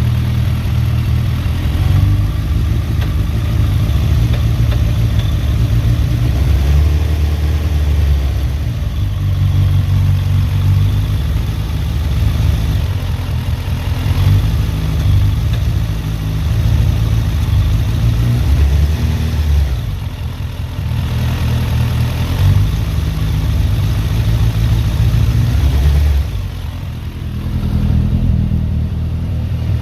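A loud, low engine-like rumble that keeps surging and easing, with a faint pitched tone rising and falling about seven seconds in.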